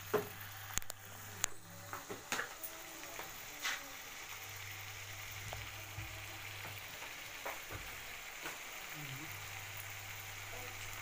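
Curry masala sizzling in hot oil in a kadhai, with a spoon clinking against the pan a few times in the first four seconds.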